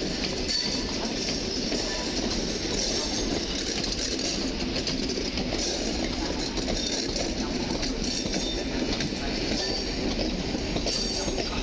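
Koleje Mazowieckie EN57AKM electric multiple unit running past, a steady rumble of its wheels on the track.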